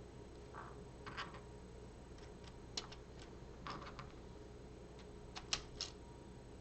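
Faint, scattered clicks and taps of plastic LEGO Technic parts being handled, about half a dozen light clicks over several seconds.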